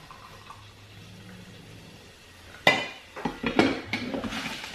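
A glass coffee carafe being set back into a drip coffee maker. It is quiet at first, then there is one sharp clank a bit over halfway through, followed by several lighter knocks and clinks.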